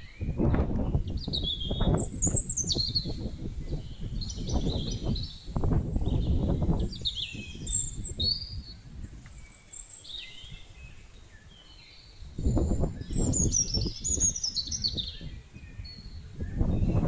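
Birds chirping and singing, with many short calls and quick sliding notes, over a low rumbling noise that comes and goes and drops away for a few seconds in the middle.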